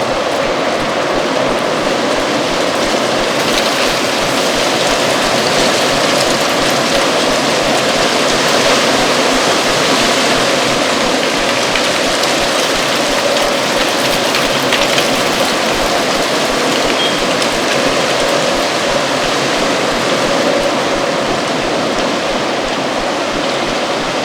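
Strong autumn wind blowing steadily, with dry leaves rustling and skittering across the ground, a dense continuous rush.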